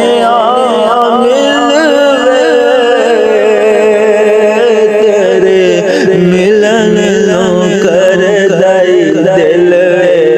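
Sufi kalam music: a long, ornamented melodic line that wavers and glides in pitch, held over a steady low drone.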